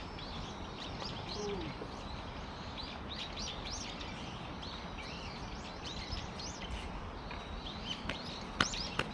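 Small birds chirping over and over, with a steady low background noise. Near the end comes one sharp click or knock, followed by a fainter one.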